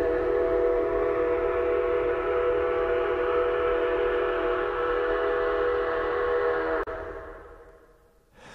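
Train whistle sounding one long, steady chord of several notes for about seven seconds, then cutting off and ringing away over the next second.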